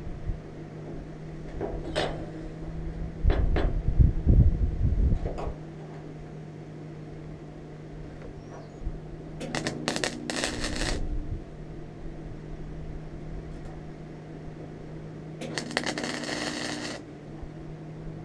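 MIG welder tack-welding a small sheet-steel patch disc into a rust hole in a truck tailgate: two crackling bursts of about a second and a half each, about ten and sixteen seconds in, over a steady low hum. A low rumble and a few knocks come before the first weld.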